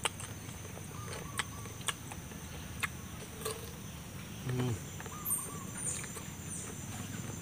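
Bites and chewing of raw green papaya: a few sharp crisp crunches in the first three and a half seconds, then a short hummed voice sound about four and a half seconds in. A steady high insect drone runs behind, with a few bird chirps near the end.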